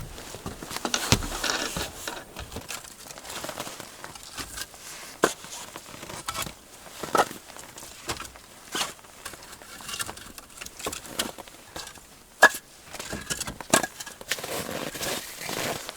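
Irregular knocks, clatters and rustling of firewood and kindling being handled in a small room, with some crackling, as a wood stove is lit.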